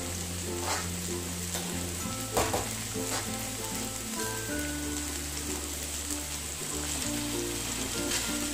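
Chopped cluster beans sizzling in hot oil in a steel kadai, with a few short clatters, the loudest about two and a half seconds in. Background music with slow, held bass notes runs underneath.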